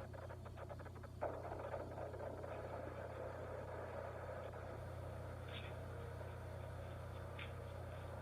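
Ring doorbell camera audio: a steady low electrical hum, with faint rapid crunching footsteps in the first second. About a second in, a steady rushing noise starts suddenly and carries on.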